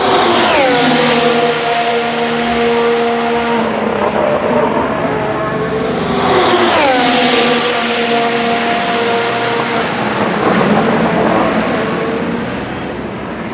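Two Formula 1 cars, each with a 1.6-litre turbo V6 hybrid engine, pass at speed one after the other about six seconds apart. Each engine's pitch drops sharply as it goes by, then holds steady as the car pulls away.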